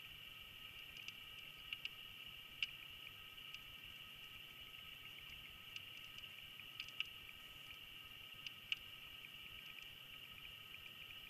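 Faint steady high-pitched whine and hiss picked up by an underwater camera in a pond, with a dozen or so sharp clicks at irregular intervals.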